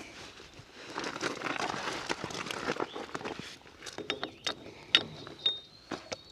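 Metal clicking, clinking and scraping as a PTO Link quick-connect coupler is pushed and worked against a splined PTO shaft, binding instead of sliding on. A rattling, scraping stretch in the first half gives way to several sharp clicks and a brief metallic ring near the end.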